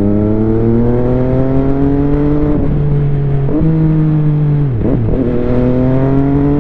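MV Agusta Dragster's three-cylinder engine accelerating under a rider, its pitch climbing and then cut short at each clutchless quickshifter gear change, about two and a half and three and a half seconds in. A deeper dip and recovery comes near five seconds.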